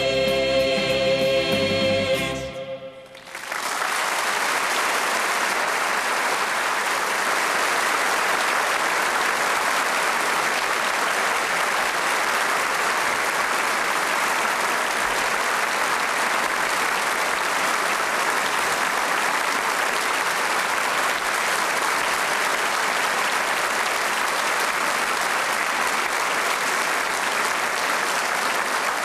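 A sung duet with band accompaniment ends on a held final chord about two and a half seconds in; after a brief hush, a large theatre audience applauds, steadily and without letting up.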